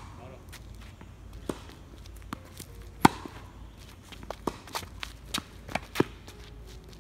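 Tennis rally on a hard court: sharp pops of rackets striking the ball and of the ball bouncing, with the loudest hit about three seconds in. Lighter taps of footsteps on the court come several times a second near the end.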